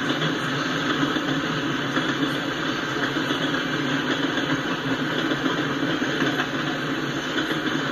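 Freight train of hopper cars rolling past, a steady rumble of steel wheels on rail.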